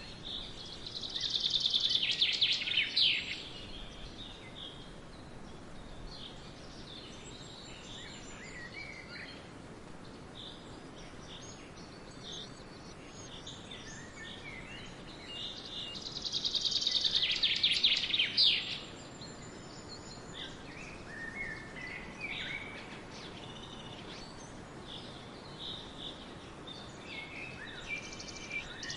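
Wild birds singing. One bird gives a loud, fast high trill of about two seconds, three times roughly 15 seconds apart, with scattered quieter chirps from other birds in between over a steady background hiss.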